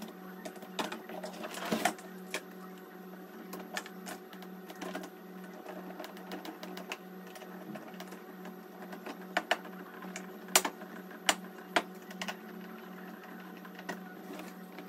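Scattered clicks and knocks of hard plastic parts being handled and fitted as a small wheel is attached to a plastic toy ride-on motorbike, with a few sharper knocks about ten to twelve seconds in. A steady low hum runs underneath.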